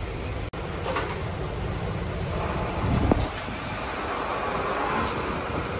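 Steady rain and wind noise with a low rumble, broken by a few sharp wooden knocks as the food stall's wooden roof boards are lifted and shifted by hand; the loudest knock comes about three seconds in.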